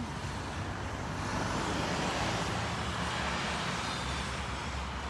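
A car driving past: a wash of tyre and engine noise that swells over a couple of seconds and then fades.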